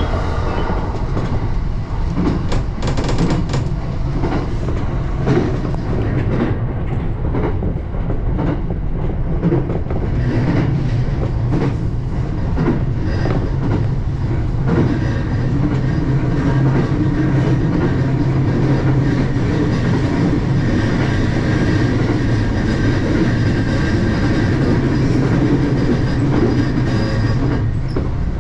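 A JR E235 series electric train running at speed between stations, heard from inside. Wheels click over the rail joints, most often in the first half, over a steady low hum, with thin steady tones joining about halfway through.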